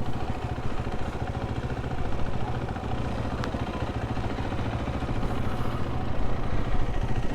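Motorcycle engine running steadily at a low, even pace.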